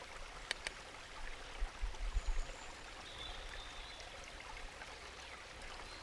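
A river running steadily, with two sharp clicks of a spoon against a metal cook pot about half a second in and a few dull low thumps around two seconds in.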